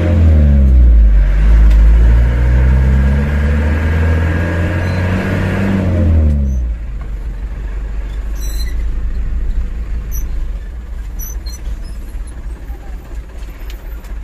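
Old light truck's engine pulling away from a standstill, its revs climbing and dropping several times as it works through the gears. About six and a half seconds in the engine sound falls away suddenly to a quieter low rumble as the truck rolls on.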